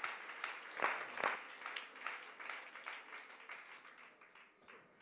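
Congregation clapping their hands in praise, the applause fading away and dying out near the end.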